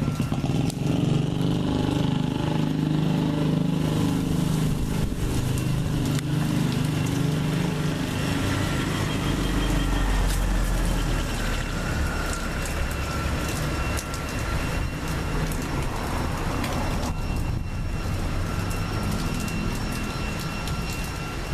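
Road traffic: a motor vehicle's engine running close by for the first several seconds, then a deeper rumble of a vehicle passing about ten seconds in, over steady street noise.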